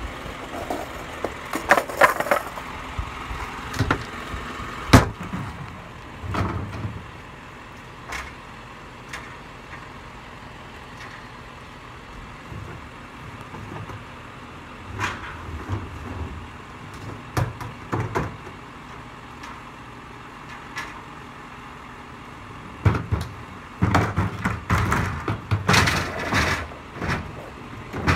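Intermittent knocks and clattering. A sharp knock comes about five seconds in, and longer bursts of rattling come near the start and again from about 23 to 27 seconds in.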